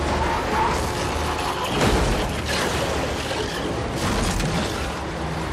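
Film action sound mix of gunfire raking a cargo truck and guardrail, bullets striking metal over a continuous rumble, with a loud boom about two seconds in.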